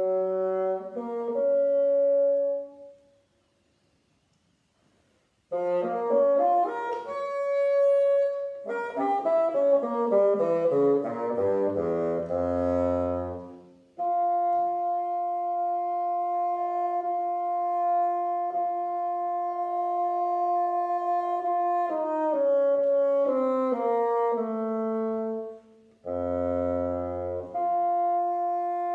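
Solo bassoon playing without accompaniment: a short phrase, a pause, then quick runs falling to low notes, a long held note, and more short phrases near the end.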